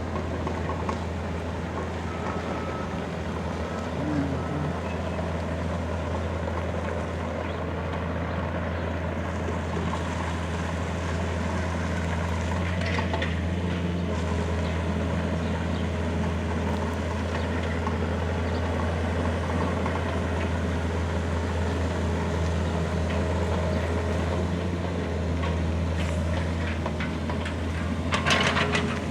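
A small excavator's engine running steadily with a low, even hum, with a few sharp knocks near the end.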